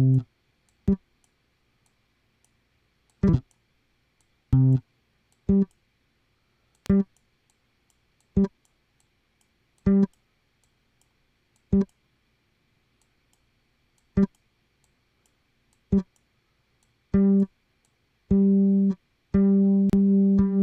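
Single notes from a plucked, guitar-like software instrument in Logic Pro, struck one at a time every one to two seconds, mostly on the same pitch. Faint clicks sit between some notes: an intermittent little pop that sometimes comes on, and whose cause is unknown. Near the end come two longer held notes, then a quick run of short notes.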